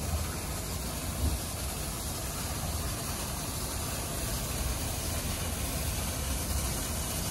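WashTec EasyWash rollover car wash in its brush cycle: the gantry travels along the car with its side and top brushes spinning against the wet bodywork, giving a steady rumble and hiss of machinery and spraying water.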